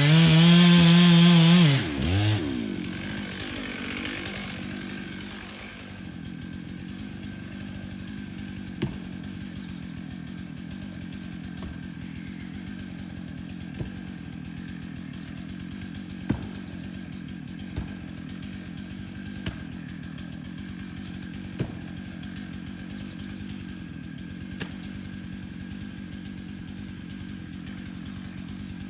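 Chainsaw held at full throttle for about two seconds, then let off, blipped once and settling to a steady idle that runs for the rest of the time, with a few sharp clicks now and then.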